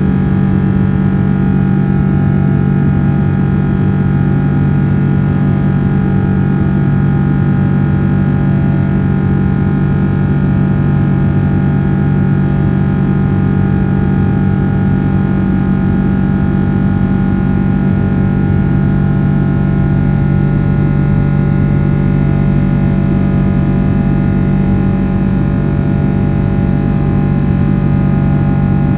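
Rolls-Royce Trent 800 turbofan engines of a Boeing 777-300 running at climb power, heard from inside the cabin: a loud, steady low drone with several steady whining tones over it.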